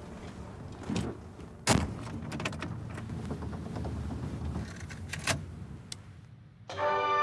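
Car ignition key being worked in the dashboard lock: several sharp clicks, the loudest about a second and a half in, over a low rumble. Music comes in near the end.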